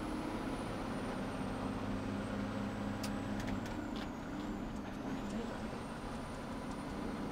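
Heavy tow truck's diesel engine running steadily at cruising speed with road noise, heard from inside the Peterbilt rotator's cab. A few faint ticks come about three to four seconds in.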